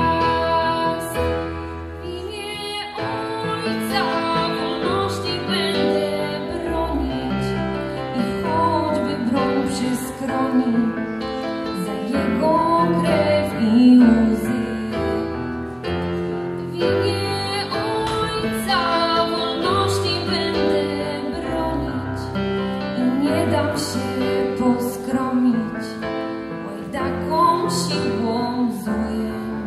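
A woman singing with an electronic keyboard accompaniment, her voice carried on a handheld microphone; held notes waver and bend over steady keyboard chords.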